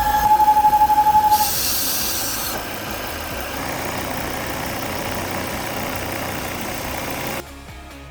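Volvo C30's 2.4-litre five-cylinder engine idling with a steady high-pitched whistle, which stops about a second and a half in, followed by a brief hiss; the engine then idles on without the whistle until the sound cuts off near the end. The whistle is the abnormal noise from a clogged blow-by (crankcase breather) oil trap.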